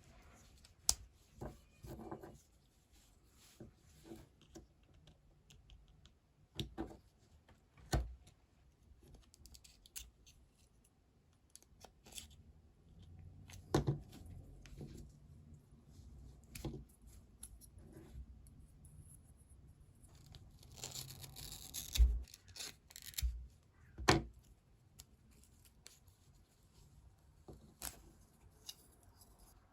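Hand work at a guitar workbench: scattered clicks and knocks of tools and parts being handled, with a short scratchy stretch about 21 seconds in followed by two louder knocks.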